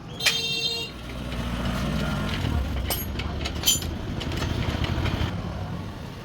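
Motorcycle engine running with a low rumble that swells about two seconds in, with a couple of sharp clicks. A short high beep sounds right at the start.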